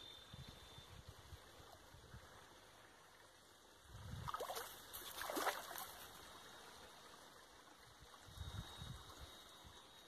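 Faint outdoor background with a low rumble, and two brief swishing sounds about four and a half and five and a half seconds in.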